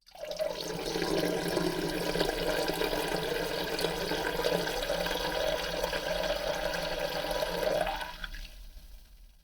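A stream of urine splashing into the water of a toilet bowl, starting abruptly and running steadily for about eight seconds, then weakening and trailing off in a few dribbles near the end.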